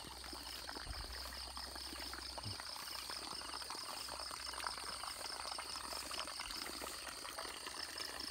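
A weak trickle of water running from an inlet hose into a fish pond, with insects chirping all the while in a high, pulsing trill.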